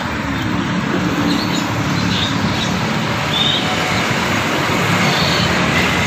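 Steady, loud background noise like passing road traffic, with a few short, high bird chirps scattered through it.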